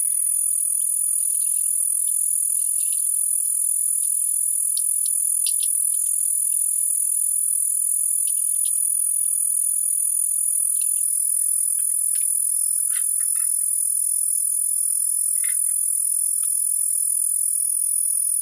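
Steady high-pitched insect chorus, one unbroken shrill tone with scattered faint ticks and no low sound beneath it.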